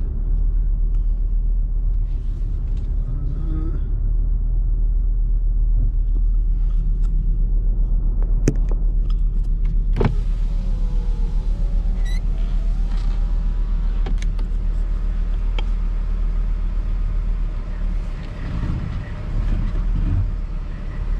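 Truck engine running at low speed while backing a trailer, a steady low hum, with a couple of sharp clicks about eight and ten seconds in.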